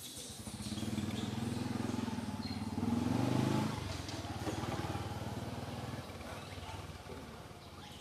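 Engine of a passing motor vehicle: it grows louder over the first second, is loudest around three and a half seconds in, then drops and fades away.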